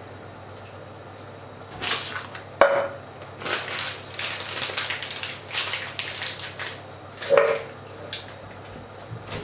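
Kitchen clatter of dishes and pots being handled: a sharp ringing clink a few seconds in and another near the end, with rustling and scraping between them.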